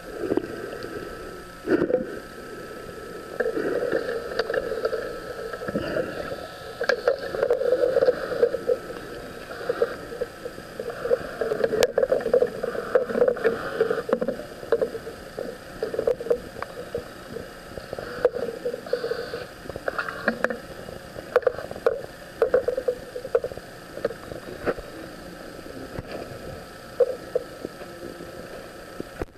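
Muffled underwater sound of the ROV's electric thrusters whirring, swelling and fading as they are switched on and off, with scattered clicks.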